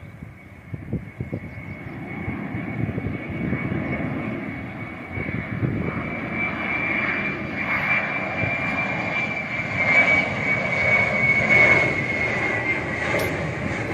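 Jet engines of an Air India Airbus A320-family airliner on landing approach with gear down, a rumble and a steady high whine growing louder as it nears. The whine drops slightly in pitch near the end.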